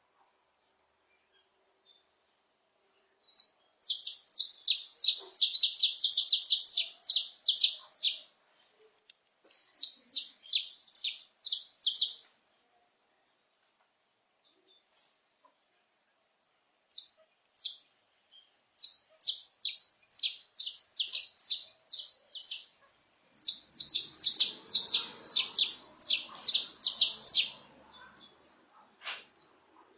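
Male saffron finch singing: several phrases of rapid, high chirping notes, each lasting a few seconds, with silent pauses between them.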